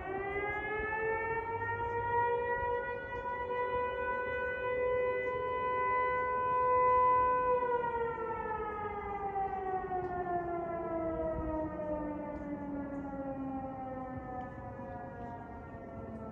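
Outdoor warning siren winding up to a steady wail, with two tones sounding at once. It holds for several seconds, then slowly winds down in pitch as the rotor coasts, typical of an electromechanical pole-mounted siren.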